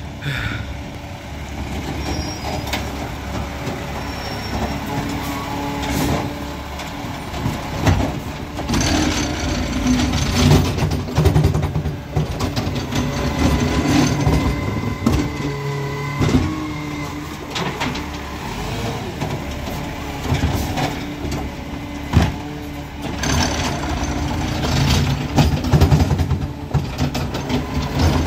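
Garbage truck's engine running close by, with scattered knocks and clanks and a few bursts of hiss.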